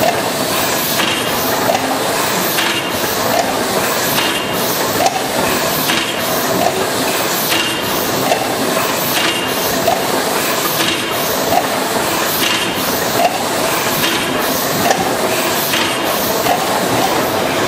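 Large stationary steam engine running steadily: its valve gear clicks and knocks in a regular beat about every 0.8 s, over a constant hiss of leaking steam.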